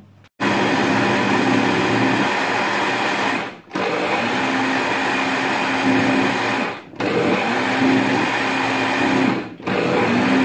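Bajaj FX7 mixer grinder running with its steel jar, churning the semi-frozen jackfruit ice cream mixture. The motor runs in bursts of about three seconds, cut off briefly three times as the knob is worked.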